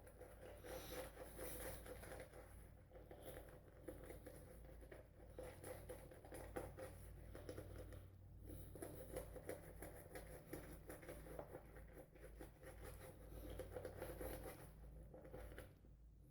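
Semogue 1305 boar-bristle shaving brush worked over the face to build a face lather: a faint, busy crackling and scratching of wet bristles and soap lather that eases off near the end.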